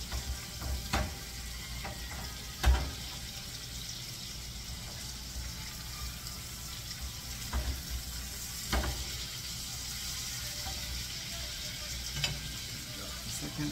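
Pork chops sizzling steadily in a frying pan, with a few sharp knocks of a cooking utensil against the pan, the loudest about two and a half seconds in.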